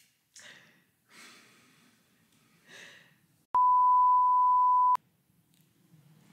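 A steady single-pitch electronic beep that lasts about a second and a half, starting about three and a half seconds in. Before it there are a few faint breaths.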